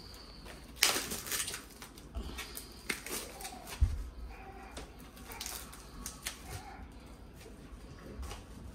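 Kitchen handling noises as raw steak pieces and their plastic packaging are worked: scattered rustles and light clicks, a burst of rustling about a second in and a dull thump near four seconds.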